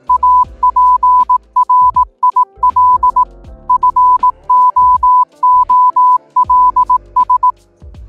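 Morse code beeps: one steady high tone keyed in short dots and longer dashes, sent in groups with gaps, over synthesizer background music. The beeping stops shortly before the end.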